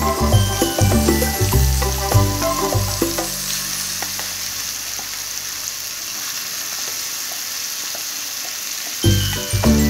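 Red chilli chutney paste sizzling in hot tempering oil in a kadai, a steady frying hiss. Background music with a beat plays over it, fades out about three seconds in, and comes back near the end.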